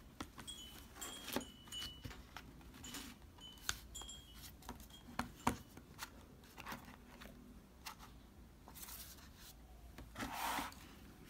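Hands working the cardboard slider tabs of a children's board book: a run of light clicks and scrapes with a few brief squeaks, and a louder swish of the card being handled near the end.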